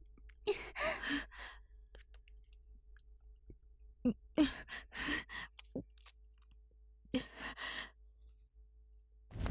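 A woman sobbing, in three bouts of breathy, gasping sobs with short pauses between.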